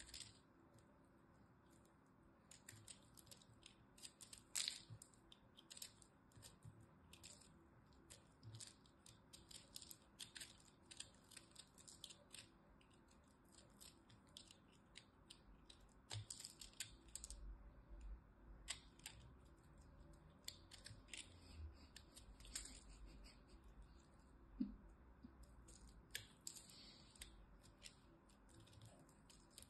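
A lump of crunchy soap being cut and broken apart with a small blade in the fingers: a soft run of irregular crisp crackles and snaps as it crumbles, with one louder snap about four seconds in.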